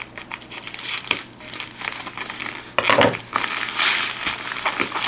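Shipping-package packaging crinkling and rustling as it is torn and pulled open by hand, with irregular handling clicks, busier in the second half.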